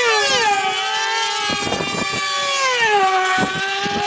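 Several radio-controlled F400 pylon-racing model aircraft running at full throttle with small glow engines screaming, the pitch dropping sharply twice as planes sweep past and rising again near the end.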